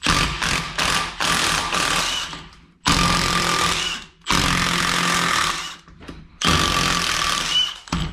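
Power wrench running bolts out of a Toyota 1JZ engine during teardown, in four bursts of one to three seconds each with short pauses between them.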